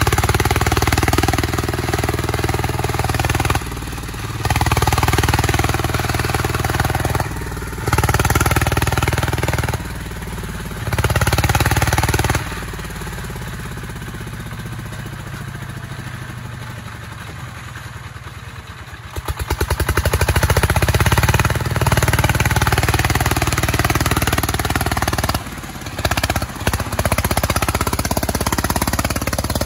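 Single-cylinder diesel engine of a công nông farm tractor working hard under load. It is revved in repeated bursts of a few seconds, dropping back to a lower speed between them. After a longer spell at the lower speed midway, it is revved hard again and held there, with two brief dips near the end.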